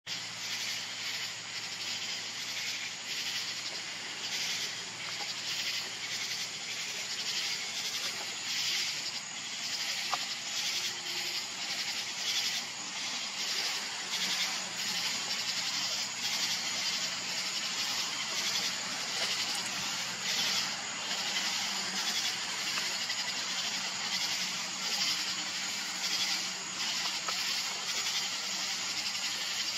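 Chorus of night insects: a steady high-pitched hiss pulsing about twice a second.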